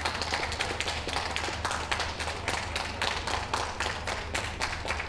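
Ringside spectators clapping: a scattered round of applause, many hands clapping out of step.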